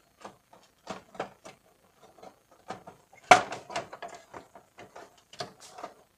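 Plastic clicks and knocks as the bypass feed assembly of a Canon iR2018 copier, around its gear and paper-feed clutch, is worked loose by hand, with one louder clack about three seconds in.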